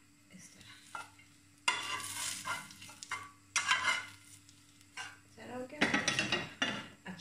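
Hot cooking oil in a steel pot sizzling as it is stirred with a spoon, in three bursts over a faint steady hum.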